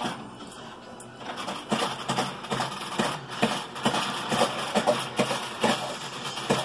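Dog eating popcorn off a blanket: from about a second in, a quick, irregular run of short crunching and snuffling strokes.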